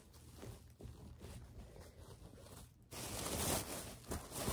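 Faint handling noise, then about three seconds in a louder, steady rustling starts as clothes are handled and pulled from a bag.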